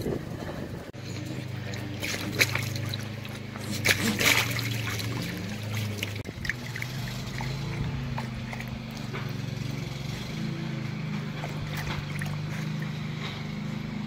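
Small dog sloshing and splashing in shallow water in an inflatable paddling pool, with a few louder splashes in the first few seconds, over a steady low hum.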